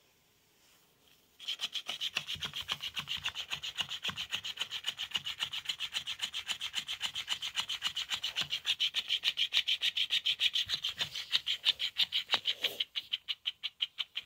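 Electric flopping fish cat toy set going, its tail flapping with a fast, even rasping rhythm of about five or six strokes a second. It starts about a second and a half in and turns quieter near the end as the cat clutches the fish.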